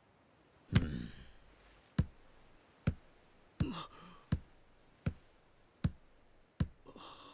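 Footsteps: eight sharp, evenly spaced steps at a walking pace, about one every three-quarters of a second, the first the loudest.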